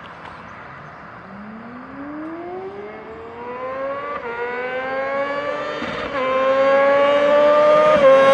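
Yamaha R6's inline-four engine accelerating hard, its pitch climbing steadily from about a second in. It drops briefly about four, six and eight seconds in as the bike shifts up through the gears, and grows louder with each gear.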